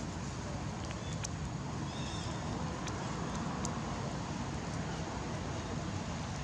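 Steady outdoor background noise with a low rumble, broken by a few faint clicks.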